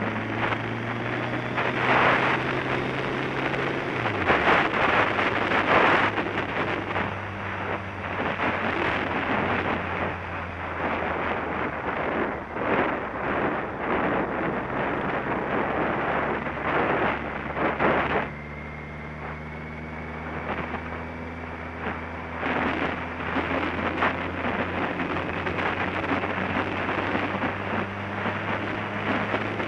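Motorcycle on the move: wind buffeting the microphone in gusts over the engine's steady hum. The engine note drops about four seconds in, and the wind eases for a few seconds after about eighteen seconds.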